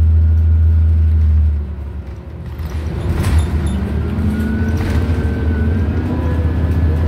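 Inside a New Flyer XDE40 diesel-electric hybrid bus under way: a loud steady low drone drops off about one and a half seconds in. Then the drivetrain and road noise come back up, with a faint whine rising slightly in pitch and two short hisses.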